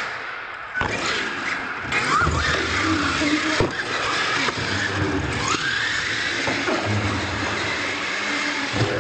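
Radio-controlled monster truck motors whining and revving, rising in pitch twice, mixed with tyre noise and sharp knocks as the truck lands and tumbles on the hard floor.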